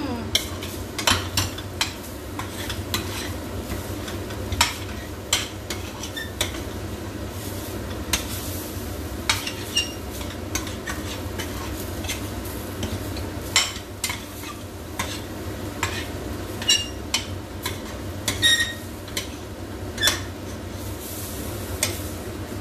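A metal cooking spoon stirring and scraping in a stainless steel frying pan of scrambled egg and bitter gourd, with irregular clinks against the pan. Under it the food is sizzling.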